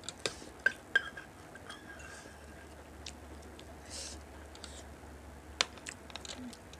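Eating sounds: a metal spoon clinking on a steel bowl, three sharp clinks in the first second (one with a brief ring) and one more near the end, with quiet chewing in between.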